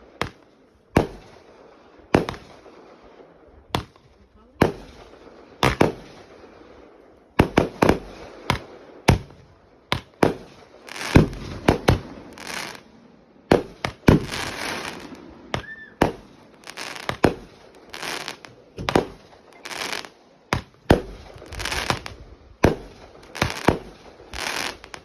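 Fireworks going off in a run of sharp bangs, about one a second at first, then coming faster and overlapping after about seven seconds, with crackling between the bangs.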